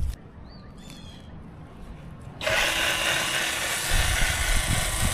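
A chainsaw running steadily, cutting in abruptly about halfway through after a quiet stretch with a couple of faint chirps.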